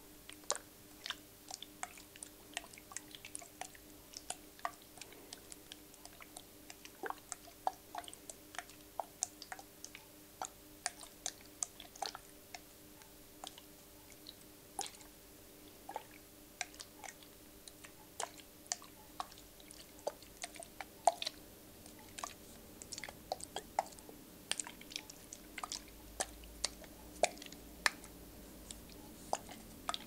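Soft close-miked clicks and taps in an irregular run of a few each second, over a faint steady hum.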